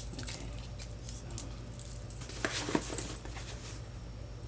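A cardboard shipping box being handled: a few faint, scattered taps and rustles over a low steady hum.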